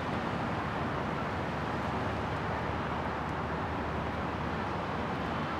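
Steady city traffic noise: an even, unbroken hiss and rumble with no distinct events.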